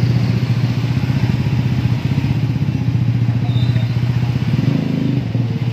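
A small engine running steadily: a loud, low, rapidly pulsing drone that holds at one pitch.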